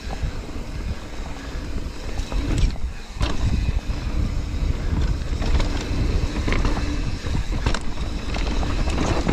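Mountain bike descending a rough, rocky trail at speed: a steady rumble of wind on the microphone and tyres over rock and roots, with the chain and frame rattling and a few sharp knocks from hard impacts.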